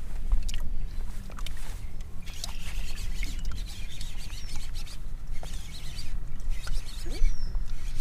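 Outdoor ambience: a low steady rumble, with a few small clicks and a couple of short, high descending bird calls near the end.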